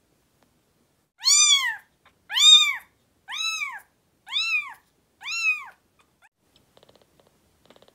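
Newborn kitten meowing five times, about once a second, each call a high cry that rises and falls in pitch.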